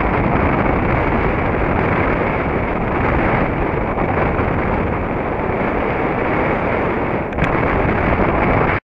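Airflow of a hang glider in flight rushing over the microphone of the wing-mounted camera: steady, loud wind buffeting. It cuts off abruptly near the end, where the camera gave out.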